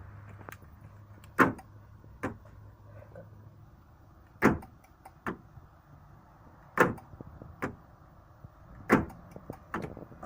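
Car central locking being cycled: the electric door-lock actuators clunk sharply four times, about every two and a half seconds, each loud clunk followed by a softer click under a second later.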